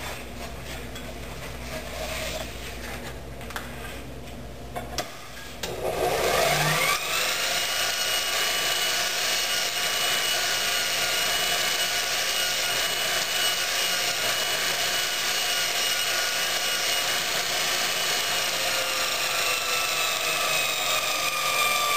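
MULTITOOL belt grinder switched on about five seconds in: its whine rises as the motor spins up, then holds steady while the 1200 grit Trizact belt runs against a steel railway spike. Before that there is a low hum with a few clicks.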